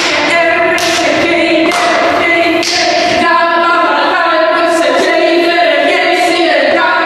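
Women's voices singing a lively tune without instruments, with a sharp strike on the beat about once a second.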